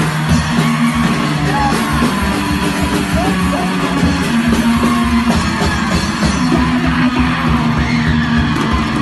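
Heavy metal band recording: distorted electric guitar riffs over fast, dense drumming, with yelled vocals.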